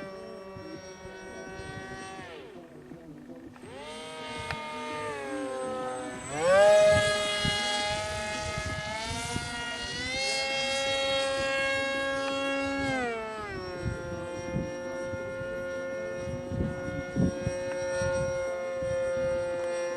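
Electric motor and propeller of a homemade foam RC F-35 model plane whining, the pitch rising and falling with the throttle. The pitch drops about a second in, climbs sharply around four and again around six seconds in, where it is loudest. It holds steady, then drops again at about thirteen seconds.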